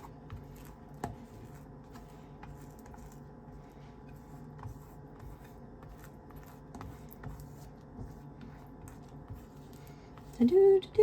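Butter knife spreading butter over a flour tortilla: soft scraping with scattered light ticks of the knife, over a low steady hum. A voice comes in near the end.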